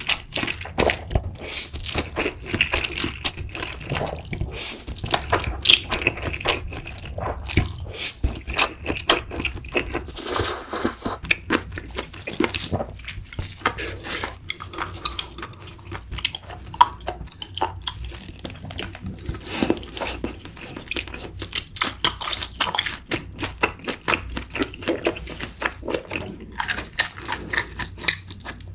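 A person chewing and eating close to the microphone: a dense, steady stream of small mouth clicks and chewing noises.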